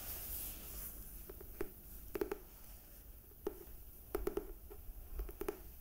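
Fingers handling and tapping the hardcover of a comic album: a soft rustle at first, then scattered light taps, some in quick pairs.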